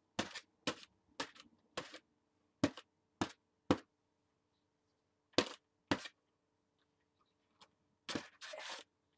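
Inflatable pineapple balloon, coated in blue paint, slapped against a sketchbook page: a run of sharp smacks about twice a second, two more after a pause, then a longer scuffing smear of balloon on paper near the end.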